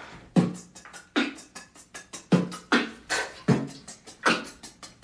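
Human beatboxing: a rhythmic beat of deep kick-drum sounds made with the mouth, with quick high clicks and ticks between them.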